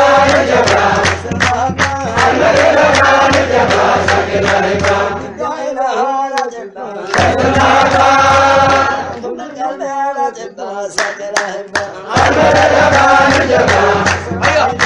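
Menzuma, Ethiopian Islamic devotional chant: male voices singing together over a low steady accompaniment that drops out twice, about five seconds in and again about nine and a half seconds in.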